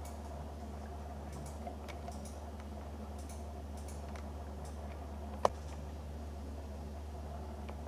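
Camera self-noise: a steady low hum with faint scattered ticks, and one sharper click about five and a half seconds in.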